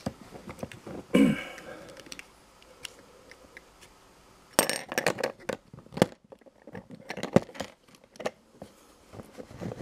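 Scattered small clicks and taps as a clear plastic pen barrel and steel digital calipers are handled and the caliper jaws are closed on the pen. There is a louder knock about a second in and a quick run of clicks around five seconds in.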